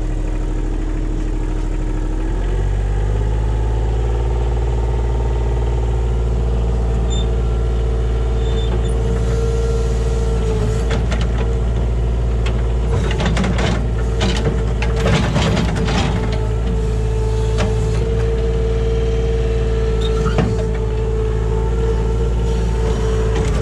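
Kubota KH-60 mini excavator's diesel engine running under hydraulic load, with a steady hydraulic whine. The engine steps up to a higher steady pitch about two seconds in. From about ten to sixteen seconds in come a cluster of knocks and scrapes as the bucket digs into the stump's roots.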